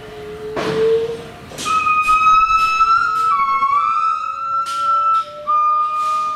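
Gibbons singing: long, pure whistled notes, a high one held steady for several seconds while a lower one slowly rises beneath it, broken by a few short harsh calls.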